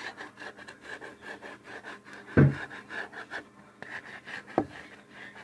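Fingernails tapping and scratching quickly on the glass of a photo frame, about five strokes a second, with a louder knock about two and a half seconds in and another sharp knock near the end.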